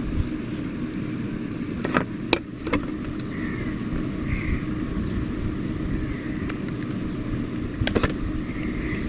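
Steady low rumble of background noise, with a few sharp clicks about two seconds in and again near the end.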